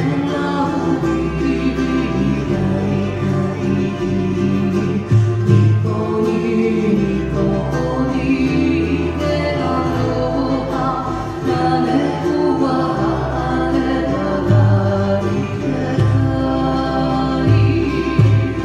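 Live Hawaiian song: a woman singing to ukulele and guitar accompaniment, over a bass line that moves every second or two.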